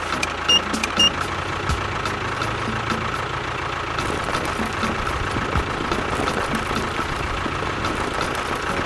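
A small motor running steadily with an even hum, with two short high beeps about half a second and one second in.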